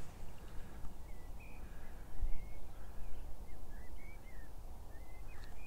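A bird calling outdoors: a string of short, quick chirps that rise and fall, over a steady low rumble.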